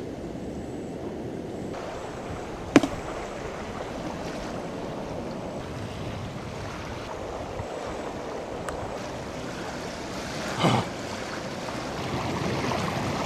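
Steady wash of ocean surf and wind on a beach, with one sharp click about three seconds in and a short knock later on.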